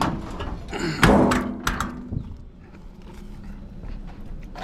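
A few heavy thuds and knocks from a scrapped washing machine's metal cabinet being handled, the loudest about a second in.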